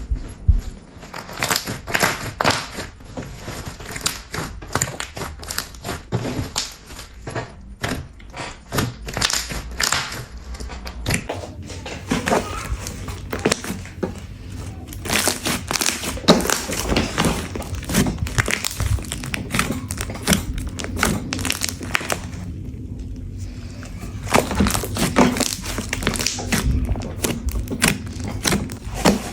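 Glossy slime being squished and worked by hand, giving a dense, irregular run of sticky clicks and pops.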